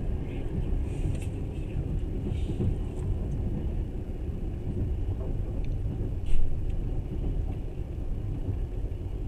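Passenger train running along the track: a steady low rumble of wheels on rails, with one sharp knock about six seconds in.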